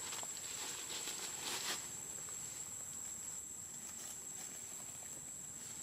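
Forest ambience: a steady high-pitched insect drone throughout, with a few seconds of crackly rustling in leaves and twigs near the start that then dies down.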